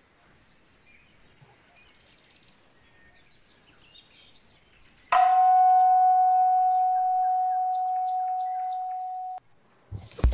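One ringing note struck sharply about five seconds in, holding a steady pitch with fainter higher overtones and fading slowly, then cut off abruptly about four seconds later. Before it there are only faint scattered chirps, and near the end two short knocks.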